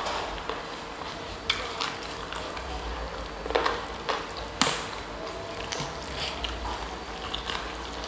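Close-up mouth sounds of eating grilled chicken: chewing with irregular wet smacks and sharp clicks, the sharpest about four and a half seconds in.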